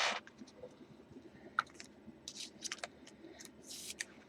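Plastic card sleeve and trading cards being handled as a card is slid into a sleeve: soft rubbing swishes at the start and near the end, with scattered light clicks and scrapes.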